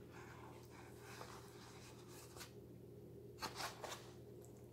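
Near silence with a faint steady hum, and a few soft brushing sounds about three and a half seconds in, as fingertips smooth a gum paste petal against a foam drying mat.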